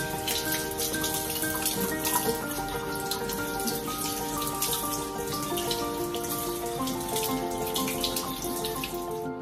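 Kitchen faucet running, the stream splashing and spattering as green onions are rinsed by hand under it in the sink. Background music with a melody plays underneath. The water sound cuts off at the end.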